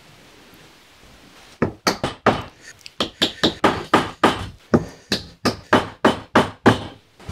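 Hammer tapping small wooden mitre keys into the slots across a mitred wooden corner. It is a rapid, even run of about fifteen sharp blows, some three a second, starting about a second and a half in.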